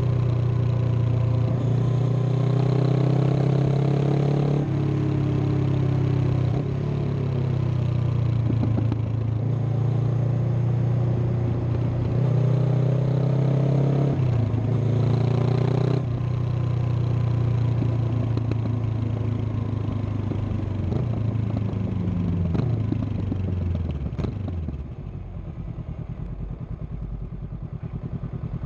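2022 Honda CB500X's 471 cc parallel-twin engine and exhaust running under throttle, rising in pitch and dropping back several times as it shifts up through the gears. About 20 seconds in it winds down and settles to a steady idle near the end.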